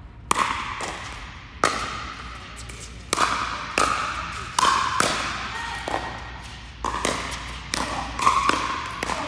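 Pickleball rally: hard paddles striking a plastic pickleball, with the ball bouncing on the court, about ten sharp pocks at an uneven pace of half a second to a second apart. Each hit rings briefly in the echo of the large indoor hall.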